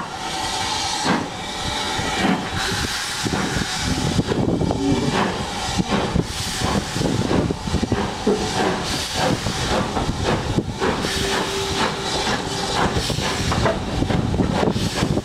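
Steam-hauled train pulling away: steady hiss of steam with repeated sharp knocks from the locomotive and wheels on the track, heard from an open carriage window.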